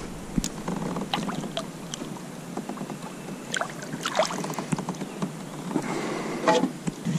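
A largemouth bass splashes back into the water beside a kayak as it is released, about four seconds in. Around it are small water sounds and a few short clicks and knocks from handling on the kayak.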